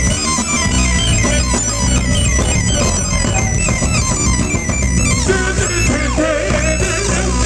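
Live funk band playing loudly, with a steady electric bass groove under repeated keyboard notes. A sliding, gliding lead line comes in about five seconds in.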